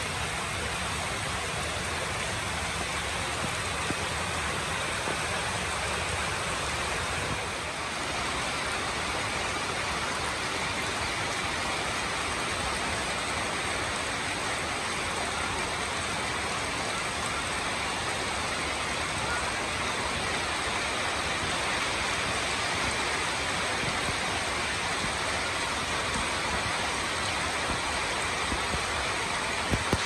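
Steady rain falling: an even, unbroken hiss, with a few sharp ticks near the end.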